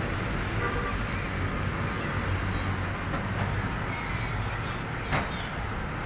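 Steady low rumble and hiss of background ambience, with one short, sharp click about five seconds in.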